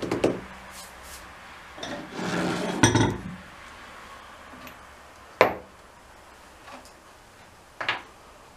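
Small metal bench-vise parts being handled on a wooden workbench board: some rustling and scraping in the first three seconds, then two sharp metallic clinks, about five and eight seconds in, as parts are picked up and set down.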